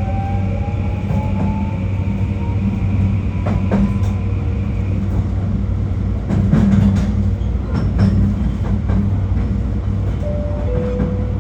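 JR Kyushu 821 series electric train running, heard from inside: a steady rumble of wheels on rail, with the traction motor's whine climbing slowly in pitch over the first few seconds as the train gathers speed. Several sharp rail-joint clicks come through the rumble.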